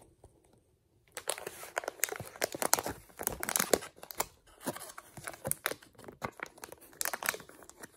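Foil packaging pouch crinkling and crackling as hands grip and pull at it, trying to tear it open, starting about a second in.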